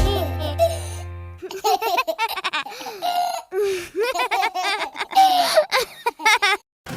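A held music chord fades out, then small cartoon baby voices giggle and laugh in a string of short, bouncy laughs for about five seconds.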